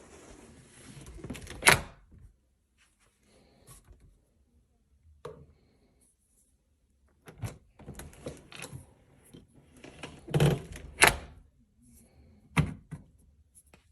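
A door and its keyless smart lock being handled: a sharp latch click after a short rustle, then a run of knocks and clicks with several loud thuds, the door moving and shutting.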